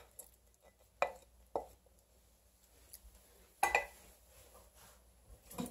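A few short, soft knocks and clinks of a container and a wooden spoon against a skillet as vegetables are added to a thick gravy and stirred in. There are about five, spaced out, the loudest about two-thirds of the way through and just before the end.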